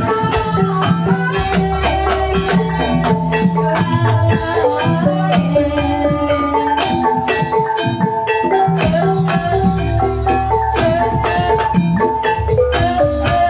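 Javanese gamelan music playing, with fast mallet-struck pitched notes over a steady beat of drum strokes.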